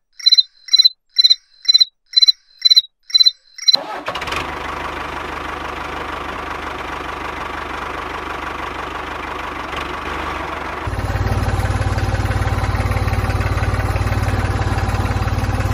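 Eight short, high beeps about two a second, then a tractor engine starting and running steadily, getting louder and deeper with a fast low chugging about eleven seconds in.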